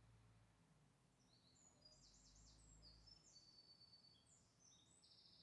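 Near silence with faint songbird calls: a series of short high chirps and quick trills, over a low steady hum of ambient noise.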